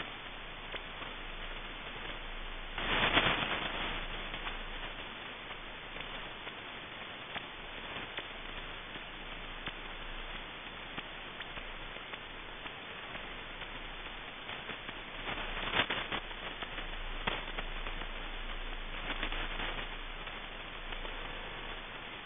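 Shortwave receiver audio tuned near 5000 kHz: a steady hiss of band noise with scattered crackles. Louder bursts of noise come about three seconds in and again a few times later.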